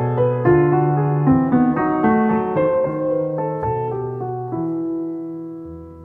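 Background piano music, notes played in a steady flow; near the end a chord is held and fades away.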